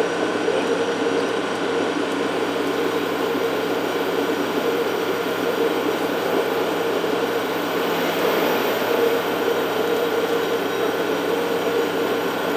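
Diesel 'Tin Hare' rail motor under way: steady engine drone mixed with wheel and rail noise as it runs along the track.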